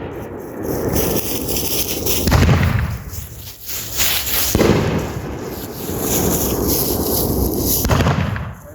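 Consumer fireworks firing in a continuous barrage of bursts and crackling, with heavier booms about two and a half and four and a half seconds in; the barrage dies away near the end.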